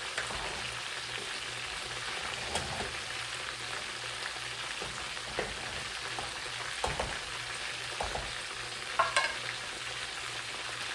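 Chicken frying in oil in a pan, a steady sizzle, with a few light clicks and knocks scattered through it.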